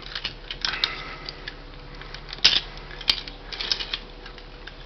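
Plastic Transformers action figure being handled: scattered clicks and taps as its parts are moved, the sharpest about two and a half and three seconds in.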